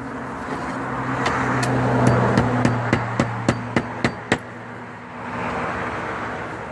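Hammer tapping a slate hook into the roof deck, about a dozen quick strikes that speed up to about four a second and then stop, with a steady low hum underneath.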